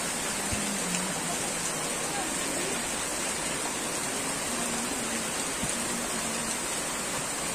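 Heavy rain falling steadily on a grass field, a constant even hiss.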